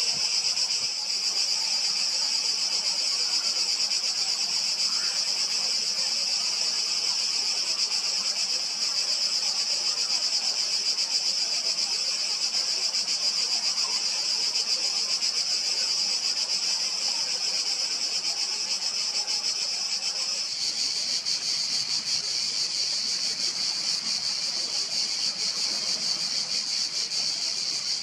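Steady, high-pitched shrilling chorus of insects. About two-thirds of the way through it shifts to a slightly lower, fuller pitch.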